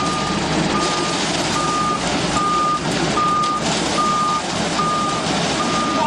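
Self-loading concrete mixer's reversing alarm beeping at one steady pitch, about once every 0.8 seconds, over the mixer's running engine.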